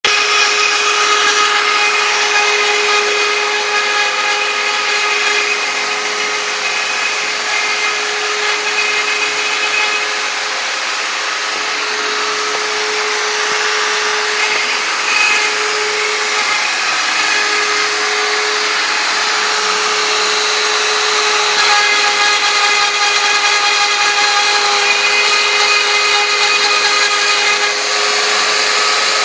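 CNC router spindle running steadily while milling Thai lettering: a constant whine with cutting noise over it, the pitch dipping a little and recovering briefly about halfway through.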